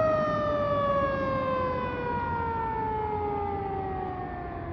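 Fire engine's siren sounding one long wail whose pitch slides slowly and steadily downward as it winds down, over a low rumble underneath.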